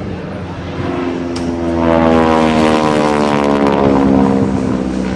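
Propeller-driven aircraft flying past. Its engine note swells to a peak about two seconds in and falls steadily in pitch as it goes by.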